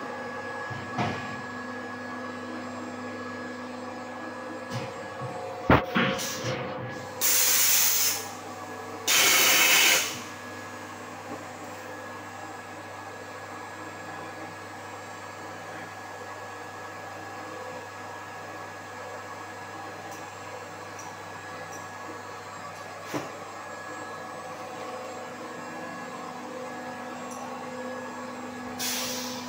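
Blow moulding machine running with a steady hum of several fixed tones. About six seconds in there is a sharp click, followed by two loud hisses of about a second each from its pneumatic air system, and a weaker hiss near the end.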